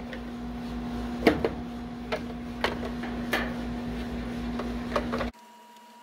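Hand screwdriver working a screw out behind a washing machine's motor capacitor: a handful of separate clicks and knocks of the tool and the plastic panel over a steady hum. The sound cuts off suddenly about five seconds in, leaving a fainter hum.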